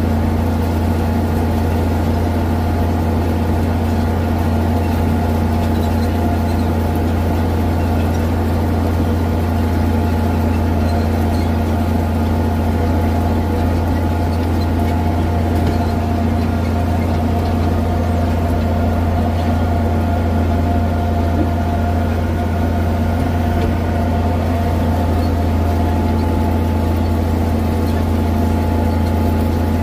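Farm tractor engine running steadily, heard from the hood beside the exhaust stack: a loud, even, deep drone with a few steady tones above it that hold unchanged throughout.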